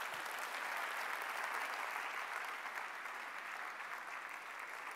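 Audience applauding, a dense, steady clapping that eases off slightly toward the end.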